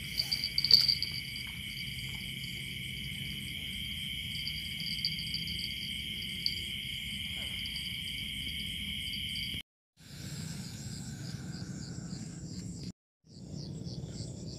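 Night chorus of crickets and other insects: a steady high-pitched trilling with a faster pulsing call above it. A few light handling clicks come in the first second, and the sound drops out briefly twice near the end.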